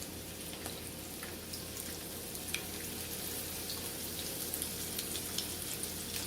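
Breaded chicken strips frying in hot cooking oil in a nonstick frying pan: a steady sizzle with scattered small pops and crackles.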